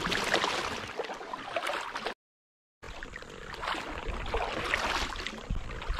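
Kayak paddle strokes splashing and dripping in the water, the sound swelling and easing with each stroke. A brief dead-silent gap about two seconds in.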